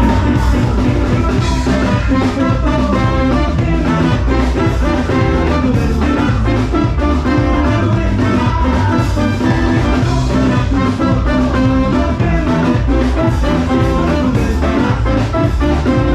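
Live reggae band with a three-piece horn section, saxophone among them, playing a horn line over bass, drums and guitar.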